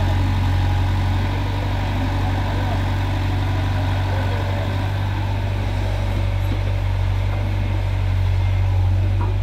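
Diesel engines of a Farmtrac tractor idling and a Cat E70B mini excavator running, together a steady low drone.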